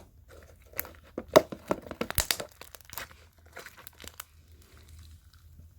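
Slime being squished and stretched in the hands, giving a run of irregular clicks and pops, most of them in the first three seconds.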